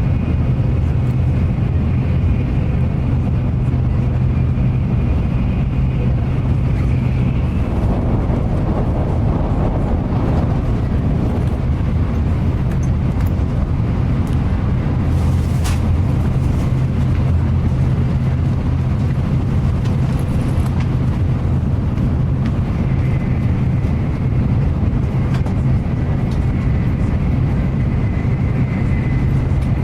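Shinkansen high-speed train running steadily, a continuous low rumble and rush. A faint high whine sounds at the start and again near the end, with a single sharp click about halfway through.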